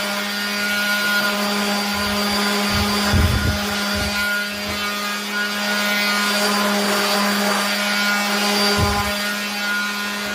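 Electric power sander running steadily against a wooden board: a constant motor hum under the gritty rasp of sandpaper on wood, with a few soft low bumps as the sander is moved.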